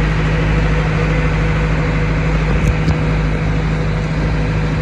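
Passenger motorboat's engine running steadily at cruise: an even, loud drone with a constant low hum.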